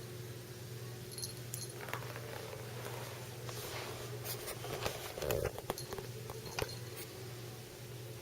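A kitten playing with a small plastic toy: scattered light clicks, taps and rustles, with a louder knock and scuffle about five seconds in, over a steady low hum.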